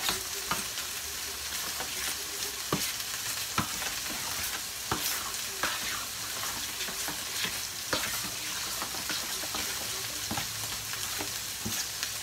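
A spoon stirring thick baked beans in a metal roasting pan, with irregular scrapes and knocks against the pan, over a steady sizzle of ground beef browning in a skillet.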